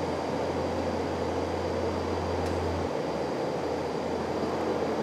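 Steady rushing noise of jet aircraft machinery, with a thin high whine held throughout and a low hum that drops out about three seconds in.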